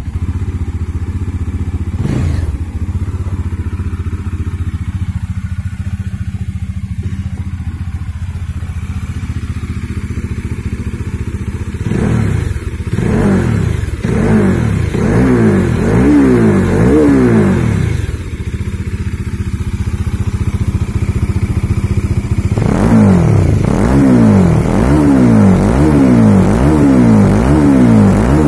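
Bajaj Dominar 400's single-cylinder engine running through an aftermarket slip-on exhaust: a steady idle, then about halfway through a string of quick throttle blips under a second apart. It settles back to idle, then blips in another quick string near the end.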